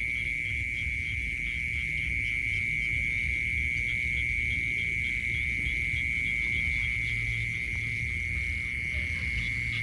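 Night insect chorus: a steady high-pitched trill with a regular pulsing chirp just above it.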